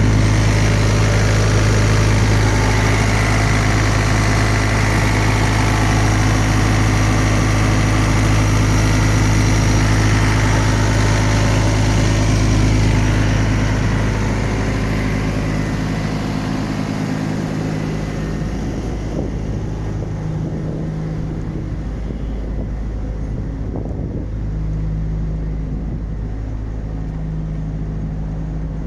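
A diesel engine running steadily at a constant speed with a deep, even hum. About halfway through it becomes quieter and duller.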